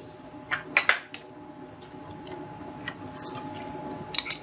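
A metal spoon clinking and scraping against glass bowls as chopped vegetables are scraped from a small glass bowl into a larger one. There are a few sharp clinks within the first second or so, two lighter ones near three seconds, and a quick cluster near the end.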